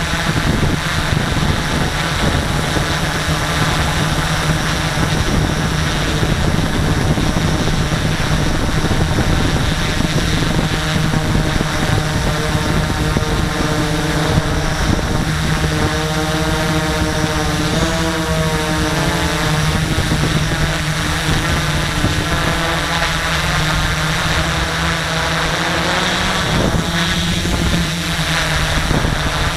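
X650 quadcopter's electric motors and propellers buzzing steadily, picked up by the camera on the craft itself. The pitch wavers up and down about halfway through as the motor speeds change.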